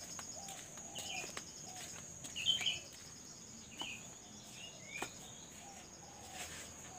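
Outdoor yard ambience: a steady high insect trill, short bird chirps about once a second, and a few light clicks.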